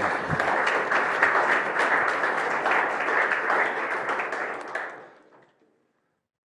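Audience applauding, dense clapping that dies away about five seconds in.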